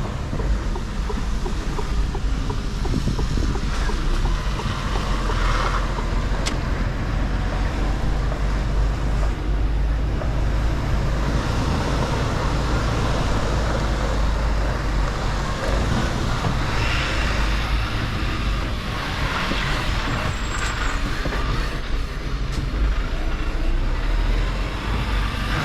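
Mercedes-Benz Actros L truck engine running at low speed, a steady low rumble, with a few brief surges of noise in the higher range and one sharp click.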